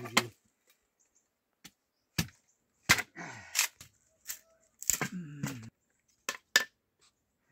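Several sharp, irregular chopping strokes, about seven in all, unevenly spaced, with a short voice-like sound about five seconds in.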